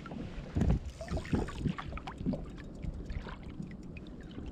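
Water slapping and lapping against a kayak's plastic hull, with a few irregular low knocks in the first couple of seconds, the loudest a little over half a second in.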